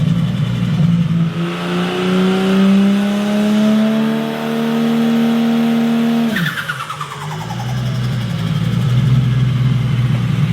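Turbocharged car engine revving up steadily for several seconds, then the throttle closes about six seconds in: the revs fall away with a brief falling turbo flutter as the compressor surges, and the engine settles back to a steady low note.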